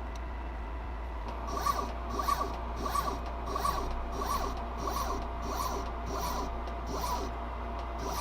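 3D printer's stepper motors whirring through a repeating back-and-forth print pattern as it extrudes cream cheese from a syringe needle. The short strokes come about one and a half times a second, starting about a second and a half in, over a steady low hum.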